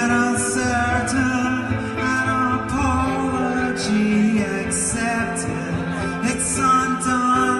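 Live solo performance: electric guitar playing sustained chords while a man sings at the microphone.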